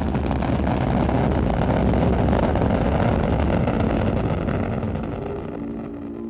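Rumbling rocket-engine sound effect as the spacecraft's upper-stage engine fires after stage separation, a steady deep rush that fades out near the end as held musical tones take over.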